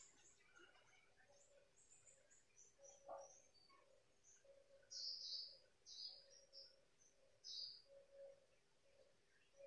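Near silence: quiet room tone with a few faint, short high chirps, most of them in the second half.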